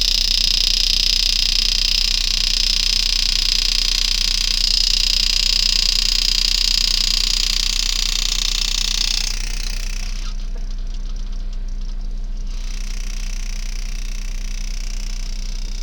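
Power-assisted engraving handpiece running as its graver cuts into a coin: a steady high buzzing hiss that stops about nine seconds in, over a constant low electrical hum.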